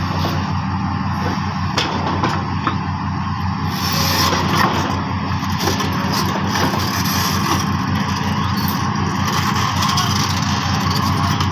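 Excavator's diesel engine running steadily with a fast, even throb, under a noisy mechanical clatter with scattered sharp clicks that grows brighter about four seconds in.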